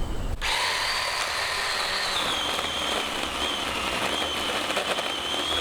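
Ryobi 18-volt cordless 10-inch chainsaw's electric motor starting abruptly with a high whine and chain noise. About two seconds in the pitch drops and holds lower as the chain cuts into wood and loads the motor.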